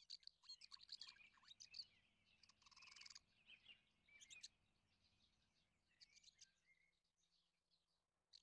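Faint birds chirping, with quick chirps and a short rapid trill in the first half, then only a few scattered calls.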